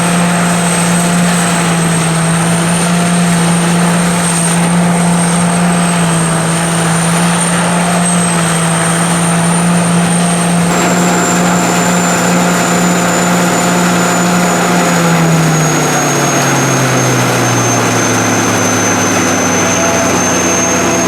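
Corn combine harvester running steadily, a low engine hum with a high thin whine over it. About three quarters of the way in, the hum falls in pitch as the machine slows.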